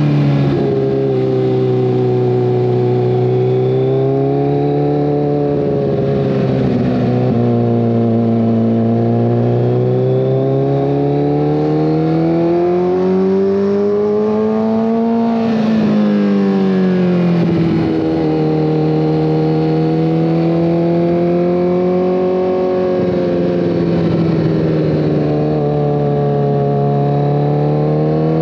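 2014 Kawasaki ZX-14R's inline-four engine running through a full Brocks Alien Head 2 exhaust, heard from the rider's seat while cruising. The engine note rises and falls with the throttle, climbing steadily for several seconds in the middle and then dropping sharply about fifteen seconds in.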